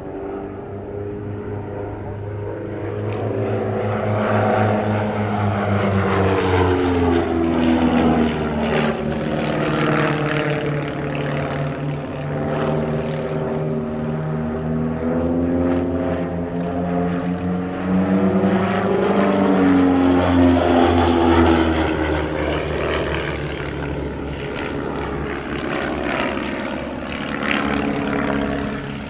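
Van's RV-7 and RV-8 propeller planes flying aerobatics in close formation, their piston engines and propellers droning. The sound swells twice and shifts in pitch as the pair passes through the manoeuvres.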